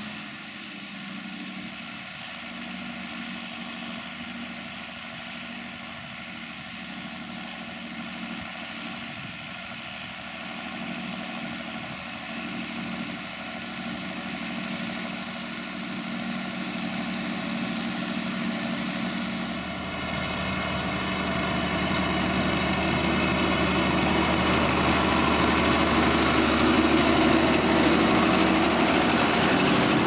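John Deere 6930 tractor's six-cylinder diesel engine running steadily under load as it pulls a plough, growing louder as the tractor draws close and passes, loudest over the last third.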